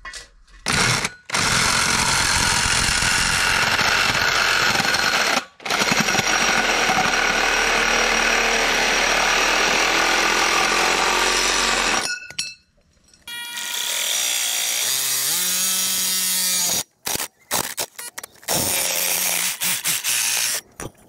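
Makita cordless reciprocating saw cutting through steel tubing, running in long loud stretches broken by short pauses. During the later cut the motor's pitch climbs briefly.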